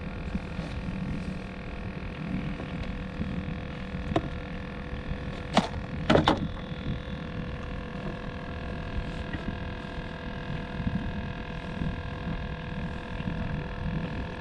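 A few sharp knocks on a fishing boat, about four seconds in and a cluster around six seconds, over a steady hum and low rumble.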